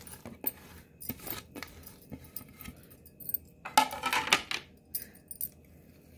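Chopped onion being scraped by hand from a plate into a steel mixing bowl of grated potato batter mix, with scattered light metal clinks and rustles and a louder clattering rustle about four seconds in.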